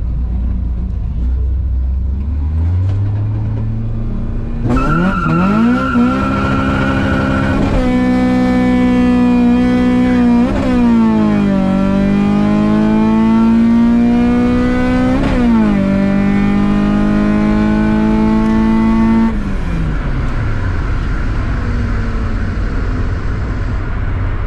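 Tuned Peugeot 406 engine heard from inside the cabin during a drag run: it runs low at first, then pulls hard from about five seconds in. The pitch climbs through the gears, with sharp drops at gear changes about 11 and 15 seconds in, and then the engine note falls away about 19 seconds in as the throttle is lifted.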